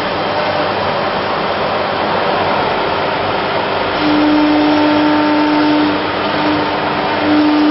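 ATC CNC router machinery running with a steady rushing noise and a steady hum that grows loud about halfway through, drops out briefly, and returns near the end.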